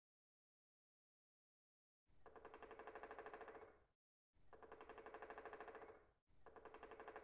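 Woodpecker pecking fast: three faint bursts of rapid, evenly spaced taps, each swelling slightly in loudness. The first starts about two seconds in and the others follow at roughly two-second intervals.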